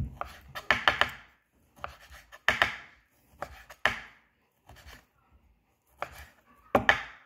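Kitchen knife cutting raw meat into cubes on a wooden cutting board, the blade knocking on the board with each stroke. A quick cluster of cuts comes about a second in, then single cuts about once a second.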